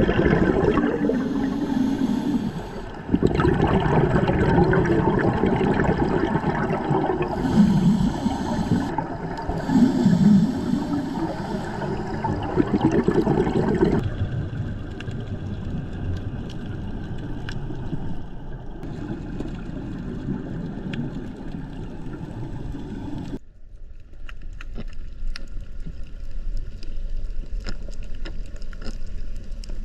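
Underwater sound picked up by a diving camera: a steady wash with surges of bubbles from scuba regulator exhalations. After about twenty-three seconds it turns quieter, with scattered faint clicks and crackles.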